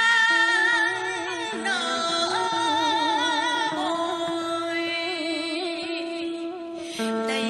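Music: a melody with heavy vibrato over held low notes, and no words sung.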